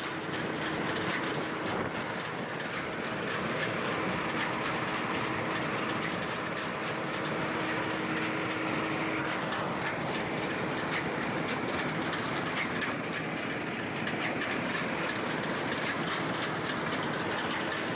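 Bizon Z056 combine harvester running while cutting wheat: its diesel engine and threshing machinery make a steady mechanical rattle. A steady hum within it drops away about halfway through.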